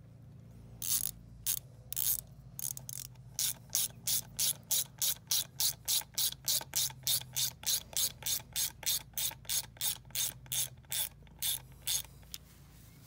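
Socket ratchet wrench clicking in short back-and-forth strokes as it drives a hex-head screw into a block wall. The strokes start slowly about a second in, settle to about four a second, and stop near the end.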